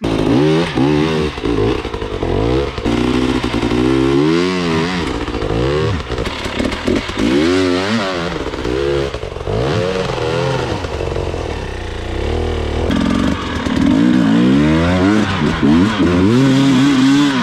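Off-road dirt bike engine revving up and down in repeated surges as the throttle is worked on a steep, technical climb, getting louder near the end.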